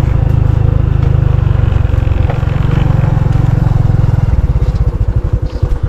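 Motorcycle engine running, then about four seconds in dropping to a slower rhythm of distinct, evenly spaced engine pulses, about ten a second.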